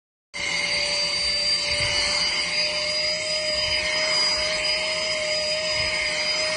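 Portable mini handheld vacuum cleaner running steadily: a motor whine with a low and a high steady tone over rushing air. It cuts in abruptly just after the start.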